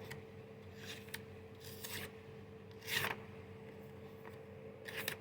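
Several short scraping strokes as a dull Kershaw knife edge is tested, the loudest about three seconds in.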